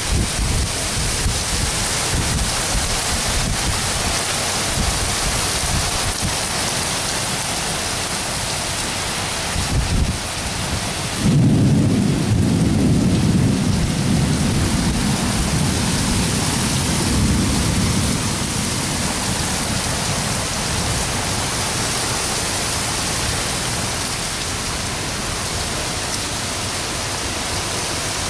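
Heavy rain pouring down steadily in a thunderstorm. A loud roll of thunder breaks in suddenly about eleven seconds in and rumbles away over several seconds.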